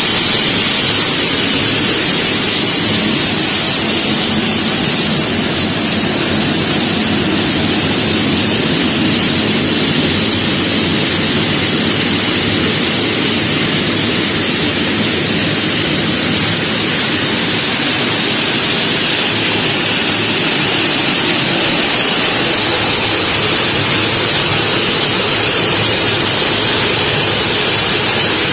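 Pine nut shelling machine running: a loud, steady mechanical noise with a strong hiss and no clear rhythm.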